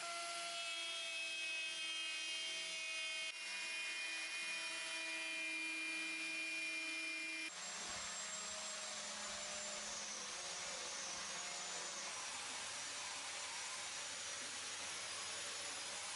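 Handheld electric power tool running with a steady motor whine on wooden furniture. The tone changes suddenly twice, about three and seven seconds in; after that it is a noisier hum with a faint wavering high whistle.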